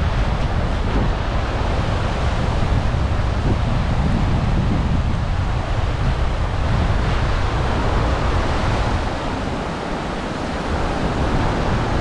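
Small waves breaking and washing up the sand at the water's edge, with wind buffeting the microphone in a low rumble that eases briefly about three-quarters of the way through.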